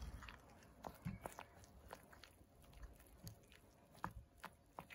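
Faint sound of a spoon stirring thick strained yoghurt in a ceramic bowl: soft squelching with a few light clicks of the spoon against the bowl.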